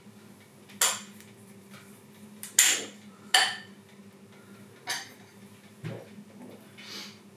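Sharp clinks and knocks of dishes and cutlery, about six separate strikes with the loudest pair about three seconds in.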